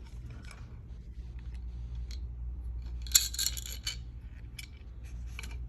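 Metal cable being worked loose and pulled out: scattered small metallic clicks, with a denser metallic rattle and scrape lasting about a second, from about three seconds in. A steady low hum runs underneath.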